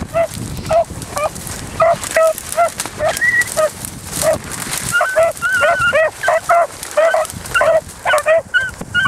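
Beagles barking on a run: short, pitched barks coming two to three a second, with more than one dog sounding at once through the second half. Dry brush crackles faintly underneath.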